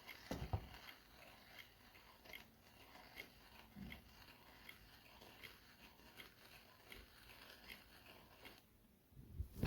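Manual burr coffee grinder being hand-cranked, giving faint, regular clicks about two to three a second with a soft thump or two; the owner says the grinder has stopped grinding the coffee.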